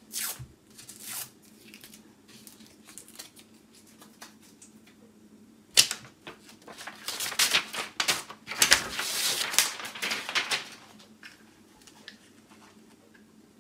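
Paper rustling and crinkling as a roll of photo paper is handled and its wrapping pulled off, with a sharp click about six seconds in followed by about four seconds of dense crackling.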